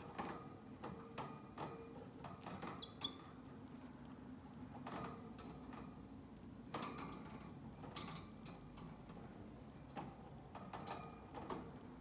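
Faint, irregular clicks and soft rustles of a canary moving about its wire cage, with one brief high peep about three seconds in.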